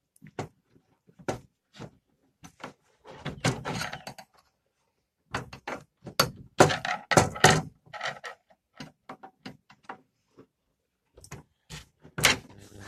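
Irregular metallic clicks, knocks and short scrapes of hand work on a truck door's interior handle as its small retaining spring clip is worked loose, with denser bursts of scraping about three seconds in and again around six to eight seconds.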